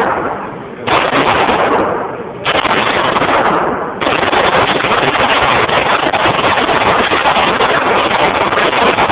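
Glock pistol fired rapidly, shot after shot so close together that they run into one another; the firing starts about a second in, breaks briefly twice, then goes on without a gap.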